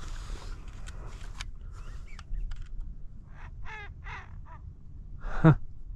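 American wigeon calling: a short run of raspy, quack-like calls a little past halfway, then one louder, deeper call near the end.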